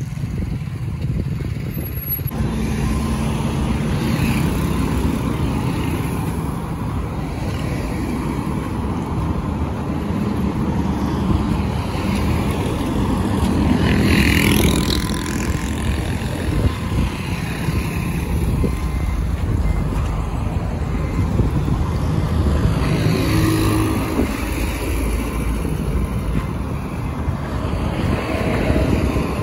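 Road traffic passing on a busy road: cars, motorcycles and trucks go by with a steady rumble. One vehicle passes close about halfway through, swelling louder and then fading.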